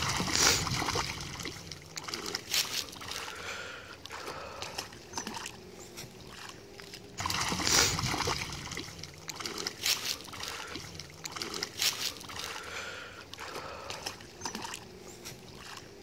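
A hooked fish thrashing and splashing at the water's surface as it is fought in close to the bank, in a string of splashes with the biggest about eight seconds in.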